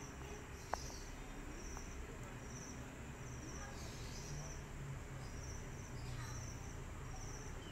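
Crickets chirping: short trilled chirps repeating about every two-thirds of a second. A single sharp click sounds just under a second in.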